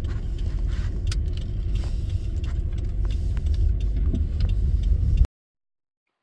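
Car engine idling, a steady low rumble with a few light clicks over it. It cuts off abruptly about five seconds in, leaving silence.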